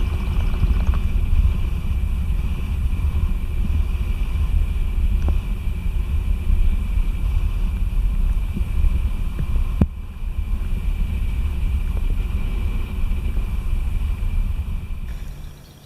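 Steady low rumble of wind buffeting the microphone, with a faint steady high-pitched tone over it. There is one sharp click about ten seconds in, and the rumble drops away just before the end.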